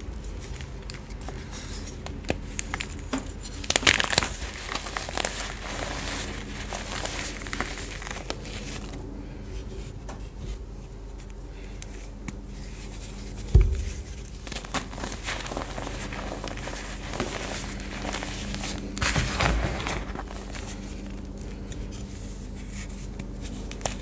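Bars of BSN Reformed gym chalk crunching and crumbling as fingers crush them into loose powder: a constant scattering of small crackles, with louder bursts of crunching about four seconds in and again near the end, and a single dull thump about halfway through.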